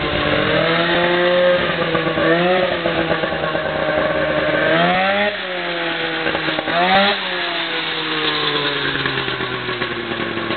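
Polaris Indy 500 two-stroke snowmobile engine in a lawn tractor, running with no exhaust fitted and untuned carbs. Its pitch rises and falls as the throttle is worked, with two sharp revs about five and seven seconds in, then it settles to a steadier, lower pitch near the end.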